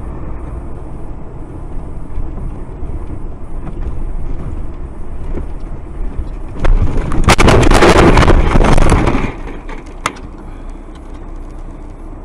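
Steady vehicle and road noise on a snowy road. About seven seconds in comes a loud crash with scraping and smashing that lasts about two and a half seconds, as a sliding truck hits the vehicle. A single sharp knock follows about a second later.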